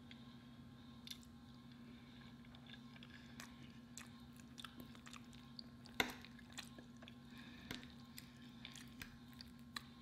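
Close-miked chewing of soft food (pork roast and mashed potatoes), with scattered small mouth and fork clicks; the sharpest click comes about six seconds in. A steady low hum runs underneath.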